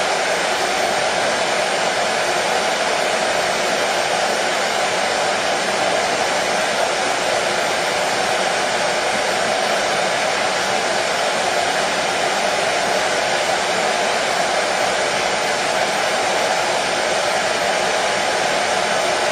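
Hair dryer running steadily: a constant rushing noise of fan and airflow, strongest in the lower middle, with a faint steady whine, used as white noise to settle colicky babies to sleep.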